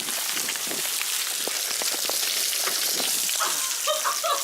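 Heavy thunderstorm rain pouring down: a steady hiss dense with sharp drop impacts.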